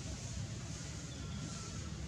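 Steady outdoor background noise: a low rumble with an even hiss over it, and a faint thin whistle about a second in.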